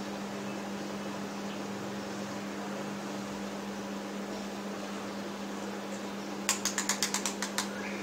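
Steady low hum with room noise. About six and a half seconds in comes a quick run of about ten sharp clicks, the loudest thing heard.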